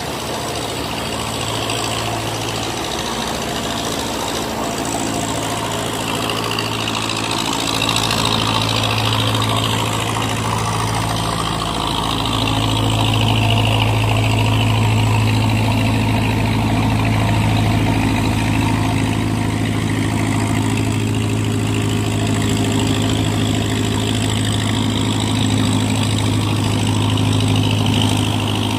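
Boat engines running steadily as cargo boats and a steel barge push through a narrow sluice-gate channel, over the rush of churned water. The engine hum grows louder about 8 seconds in and again near 12 seconds.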